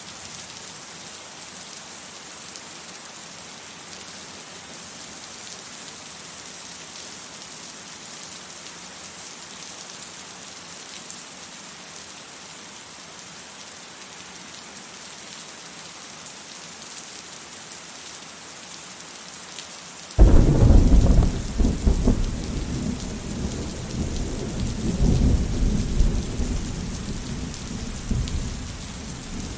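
Steady rain, then about two-thirds of the way through a loud clap of thunder breaks in suddenly and rolls on as a deep rumble in waves over the rain.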